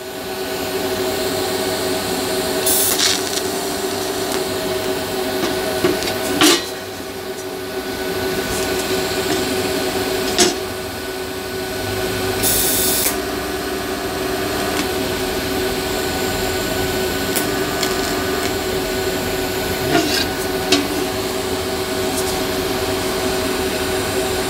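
Welding arc buzzing steadily from a hand-held TIG torch as sheet metal of a motorcycle fuel tank is welded, with a few short clicks and a couple of brief dips.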